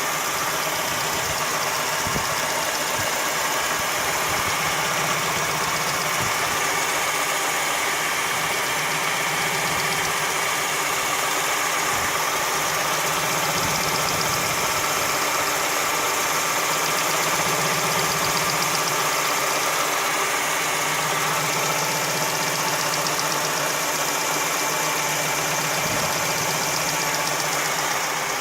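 Hyundai Getz 1.4 four-cylinder petrol engine running steadily, with a knocking from inside the engine.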